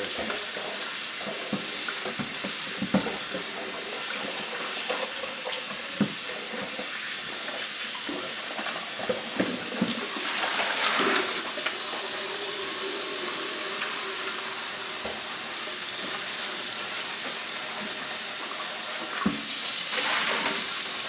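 Kitchen faucet running into a stainless steel sink as a gallon paint can is rinsed out under the stream and scrubbed inside with a rag, with a few short knocks of the can against the sink. The water runs steadily.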